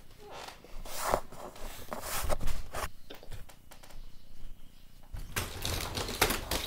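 A run of knocks and light clatters from handling and footsteps, then a folding accordion closet door rattling as it is pulled open near the end.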